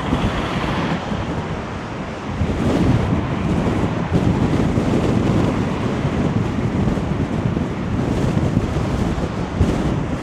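Strong wind buffeting the microphone over a rough sea crashing against the sea wall, a loud steady rush that swells about two and a half seconds in.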